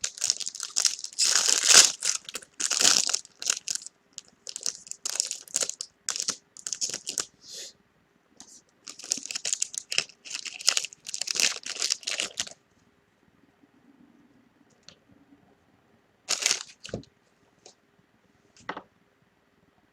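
Plastic and paper wrapping being torn open and crinkled as a box of trading cards is unwrapped, in quick ragged bursts for about twelve seconds. After a pause, two short crinkles follow.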